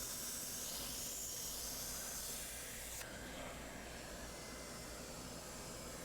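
Air hissing steadily as a blower clears dust from a refrigerator's condenser coils; the higher part of the hiss drops away suddenly about three seconds in.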